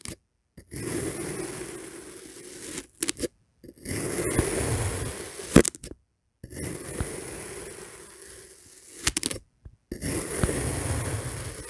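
Knife blade slicing down through kinetic sand, a grainy, crunchy scraping picked up close by a small microphone clipped to the knife. Four slow cuts, each a few seconds long, separated by brief silences, with a sharp click about five and a half seconds in.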